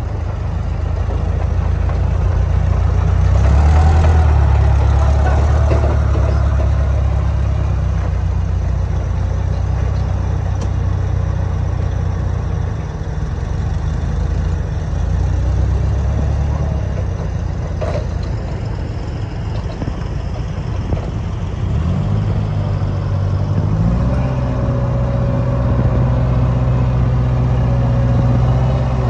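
Caterpillar propane-powered forklift's engine running as the forklift is driven. The engine note steps up in pitch twice near the end as the engine speeds up.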